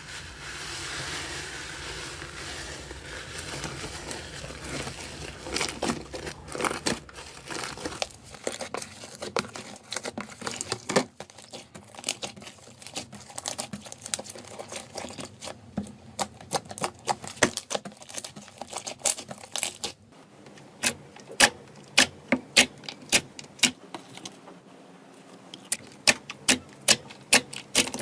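Slime being squished and poked by hand: a soft hissing squish at first, then sticky crackles and clicks, and in the last part a run of sharp pops about two a second.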